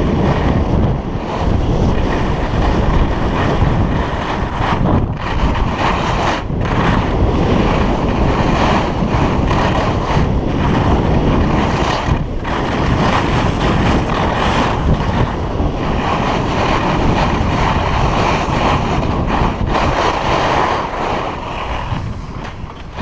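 Heavy wind buffeting an action camera's microphone as a skier runs fast downhill, mixed with the hiss of skis sliding on packed snow; the noise dips briefly a few times.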